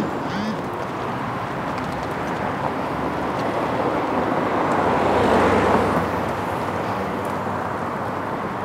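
Street traffic: a steady rush of passing cars, swelling as one goes by about five seconds in.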